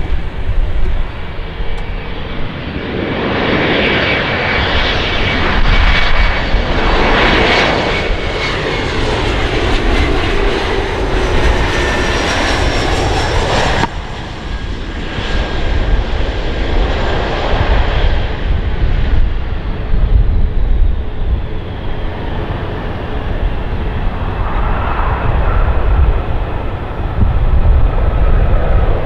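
Turbofan engines of Bombardier CRJ regional jets landing: the engine noise swells as a jet passes, with a whine sliding down in pitch. The sound changes abruptly about 14 seconds in, and a second jet's whine and engine noise rise and fade after it.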